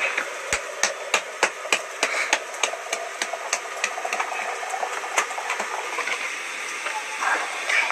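Bread dough being kneaded and slapped by hand in a metal bowl: a quick run of soft thumps about three a second, then more irregular pats and clicks over a steady hiss.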